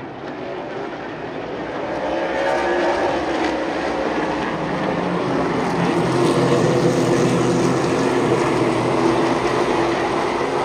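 Super late model race cars' V8 engines running at speed, growing louder about two seconds in, with several engine notes overlapping and shifting in pitch.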